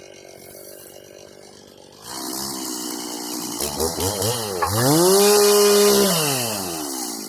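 Two-stroke chainsaw idling quietly, then throttled hard about two seconds in: a few quick revs, about a second held at full throttle, then the engine winds back down toward idle.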